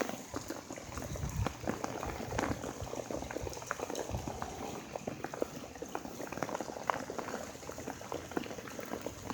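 Heavy rain falling onto flooded streets and sidewalks: a dense, irregular patter of drops splashing into standing water.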